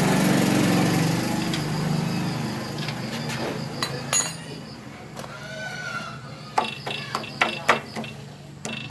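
A small engine or motor runs steadily and fades away over the first few seconds. Then come sharp metallic clinks: a wrench lifted from the concrete about four seconds in, and a quick run of clinks near the end as a motorcycle's rear shock absorber and its mounting bolt are handled. A faint high insect buzz runs underneath.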